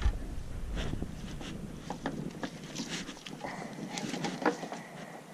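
Scattered light taps and knocks on a wooden dock's deck boards, with wind rumbling on the microphone for the first three seconds.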